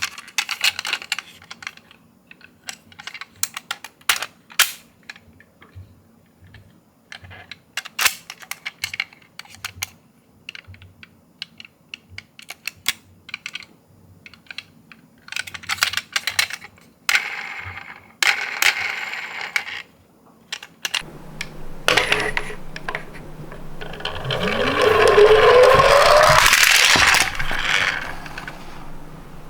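Toy ambulance minicar being handled: scattered sharp clicks and taps of small plastic parts. About 22 seconds in comes a few seconds of louder rushing noise, with a whine that rises in pitch in the middle of it.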